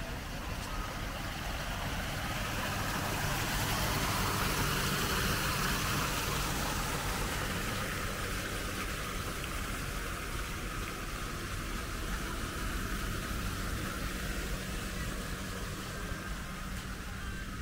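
A motor vehicle's engine runs steadily with a low hum. A broad wash of noise swells about three seconds in and fades again a few seconds later.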